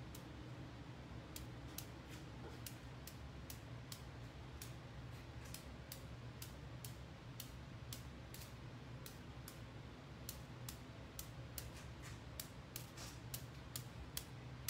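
Sharp, light taps, about two to three a second and a little thicker near the end, as a marbling brush is tapped to sprinkle drops of paint onto the marbling size for a stone pattern.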